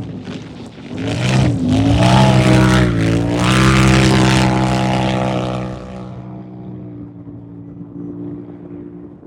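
Turbocharged UTV race car engine revving close by with a rush of noise, its pitch dipping and rising. About six seconds in it drops to a fainter, steady engine note.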